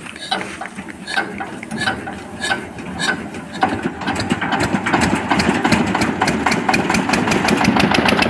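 Engine of a rice harvesting machine running, with a regular knock a little under twice a second at first. About three and a half seconds in, it changes to a faster, louder mechanical clatter that builds toward the end.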